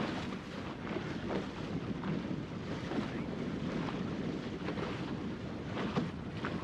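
Wind on the microphone over the rush and splash of water along the hull of a plywood Goat Island skiff sailing heeled in a fresh breeze: a steady noise with no distinct events.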